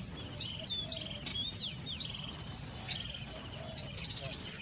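Several birds calling at once: quick whistled notes gliding up and down, mixed with buzzy trills, over a steady low background rumble.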